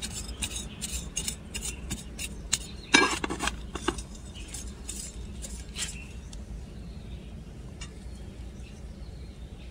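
Small hand shovel digging and scraping through potting soil in a flower pot, with gritty scrapes and light clinks. The strokes come thick through the first six seconds, loudest about three seconds in, then thin out to a few faint ones.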